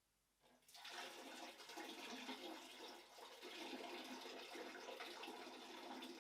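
A stream of urine splashing into the water of a toilet bowl. It starts about a second in and runs on steadily as a fluctuating splashing.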